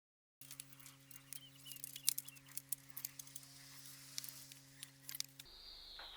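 Irregular small metallic clicks and taps of hardware and tools being handled, over a steady low hum. Near the end a single falling bird chirp.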